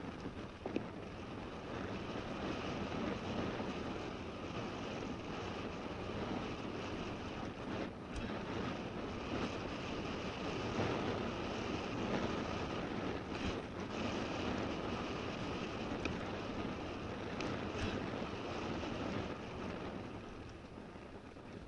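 Mountain bike riding down a wet, muddy forest trail: a steady rush of tyre noise and wind on the body-mounted camera's microphone. A few sharp knocks come from the bike over bumps.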